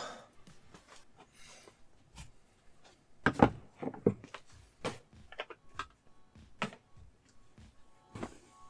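Scattered knocks and clicks of things being handled at a desk: a desk chair pushed back and a small stack of hard drives set down on the desktop as a weight. The loudest knocks come about three and a half seconds in.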